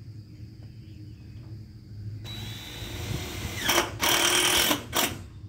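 Power drill driving a screw into a metal roof panel. The motor starts about two seconds in and grows louder, runs hardest for most of a second near the end, then gives one short final burst.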